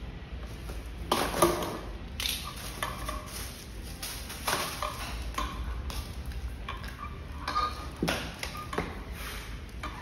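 Plastic packaging film crinkling and rustling as a wrapped mudguard is unpacked, in a string of short handling noises, with a few light metallic clinks.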